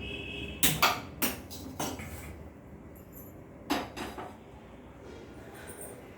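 Kitchen utensils and cookware clattering: a run of sharp metallic knocks and clinks in the first two seconds, then a few more around four seconds in.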